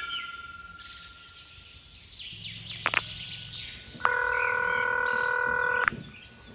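Cartoon sound effects laid over a toy animation: a fading chime tail, a short low buzz with a click near the middle, then a loud steady buzzing tone of several pitches held for almost two seconds, starting about four seconds in.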